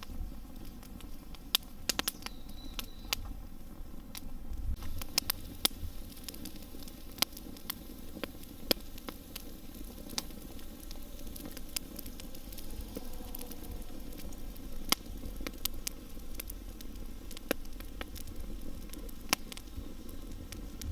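Wood campfire crackling, with sharp irregular pops over a low steady hiss.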